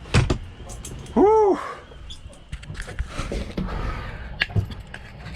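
A man's drawn-out "whew" that rises and falls in pitch, with a sharp knock just before it and scattered light knocks and clicks afterwards over a steady low rumble.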